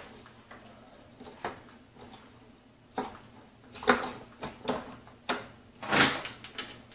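Irregular knocks and clicks as a case fan and its screws are handled and fitted against the vented top panel of a PC case. The loudest knocks come about four and six seconds in.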